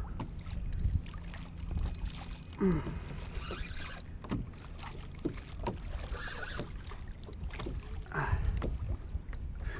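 Water slapping and sloshing irregularly against the hull of a Hobie Compass fishing kayak as a hooked fish tows it, over a steady low rumble of wind on the microphone.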